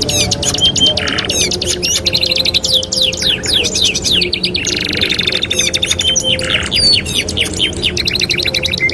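Domestic canaries singing without pause: fast rolling trills, rapid runs of repeated notes and quick downward-sweeping whistles, broken now and then by short buzzy notes.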